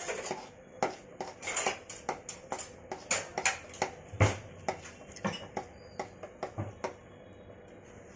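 Spoon clinking and scraping against a kadhai while stirring a thick jaggery and nut mixture, about two to three strokes a second, with one heavier knock about four seconds in; the strokes stop about seven seconds in.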